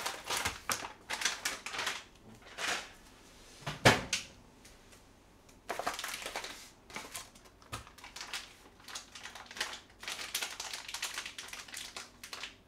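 Plastic meal-kit packaging and a plastic tray of tteokbokki rice cakes being handled: irregular crinkling, rustling and clicking of plastic, with one sharp knock about four seconds in. It goes quieter for a moment, then the rustling picks up again about six seconds in.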